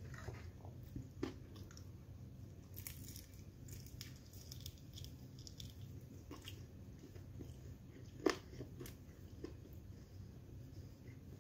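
Flaky puff-pastry burekas being torn apart and chewed close to the microphone: scattered soft crackles and mouth sounds, with one sharp crunch about eight seconds in, over a low steady hum.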